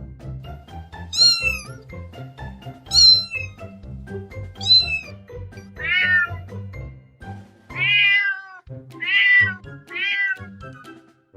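Kittens meowing: about seven separate high-pitched meows, each falling in pitch, spaced a second or two apart, over background music.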